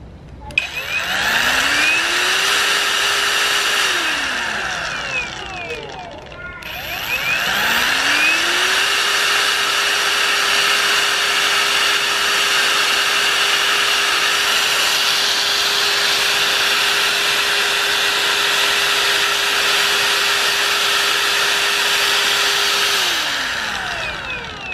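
KEN brushless cordless angle grinder run twice by its trigger, spinning freely: a short run and then a long one, each winding up to a steady high whine and winding down after release.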